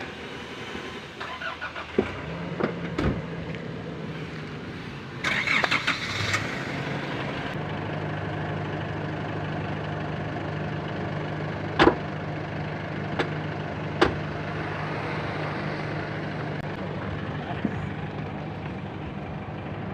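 A motor vehicle's engine running with a steady low hum. There is a burst of noise about five seconds in, and a few sharp knocks.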